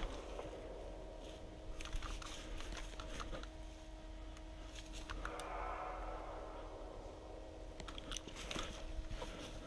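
Soft rustling and crunching with scattered sharp clicks and crackles, over a faint steady electrical hum.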